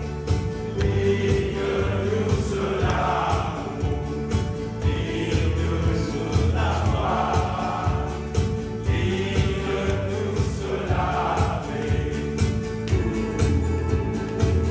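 Group of men singing a gospel song together in chorus, with hand claps keeping time over a guitar accompaniment.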